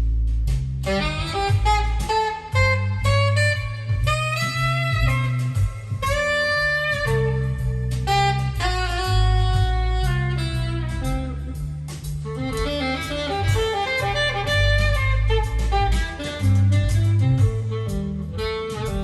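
Recorded jazz-blues music played back through KLH Model 3 loudspeakers: an instrumental break with a saxophone lead playing held melodic notes over a strong bass line.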